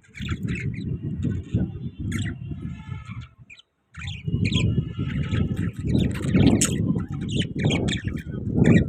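Pet parrots chirping and squawking in many short, quick calls over a steady low rumbling noise, which drops out briefly about three and a half seconds in.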